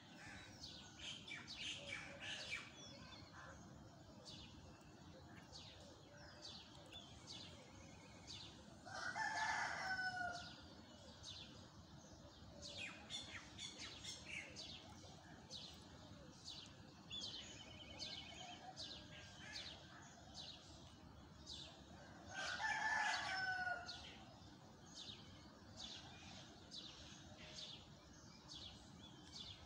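Morning birds calling: many short, high chirps throughout, and twice, about 9 and 23 seconds in, a louder, longer call lasting about a second and a half. A faint low background rumble runs underneath.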